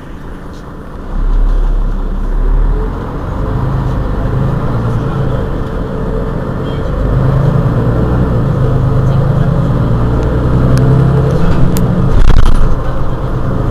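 Mercedes-Benz Citaro G C2 articulated bus's diesel engine running at a standstill, heard from behind the bus: a steady low hum that swells about a second in and again later, loudest near the end, with a few short clicks.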